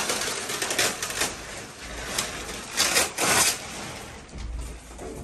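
Clear plastic packaging wrap being pulled off and bunched up, crinkling and rustling in irregular loud bursts, with a few dull low thuds of furniture being handled.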